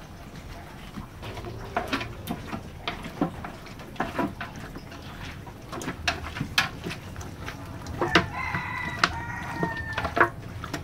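Metal spatula clinking and scraping against an aluminium pot and wok while pieces of duck are stirred, in a string of sharp knocks. About eight seconds in, a rooster crows once for about two seconds.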